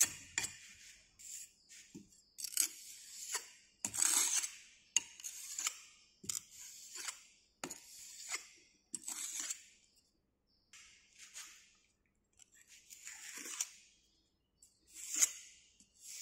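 Hand trowel scraping and smoothing the surface of moulding sand in a moulding box: a string of short, irregular scraping strokes with a few light clicks.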